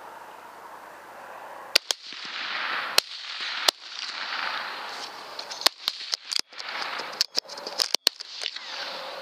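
Rifle shots fired at a group of feral hogs: a rapid, irregular string of about a dozen sharp cracks, starting a little under two seconds in and running to near the end.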